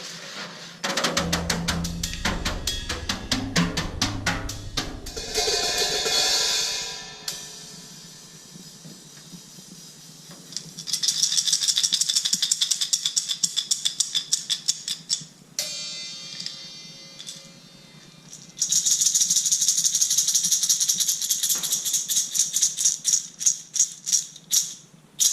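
Percussion sound-effect instruments played one after another: several runs of fast rattling clicks, with a short held tone a little past the middle.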